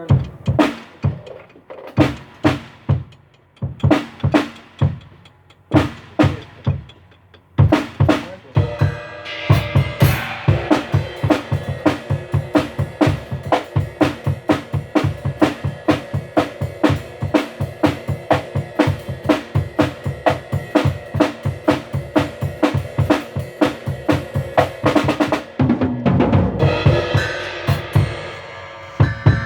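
Drum kit being played: scattered single hits at first, then from about eight seconds in a steady, fast beat of bass drum and snare, which changes briefly near the end before the hits resume.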